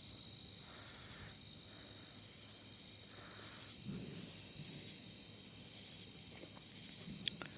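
A steady chorus of night insects, several high unbroken tones layered together. There is a soft low thud about four seconds in and a sharp click near the end.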